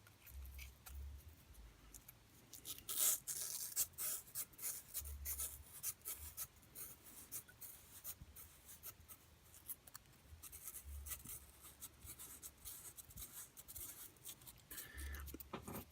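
Fine 600-grit sandpaper rubbing by hand on the copper commutator of a brushed RC motor armature: faint, irregular scratchy strokes, cleaning up the commutator surface.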